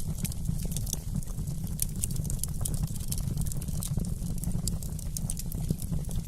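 Wood fire in a fireplace crackling, with many small sharp pops and snaps over a steady low rumble.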